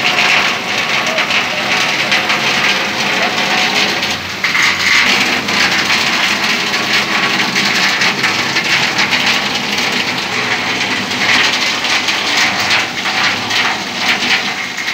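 Steady rushing and splashing of floodwater as auto-rickshaws and motorbikes drive through a flooded street, with vehicle motors running beneath it.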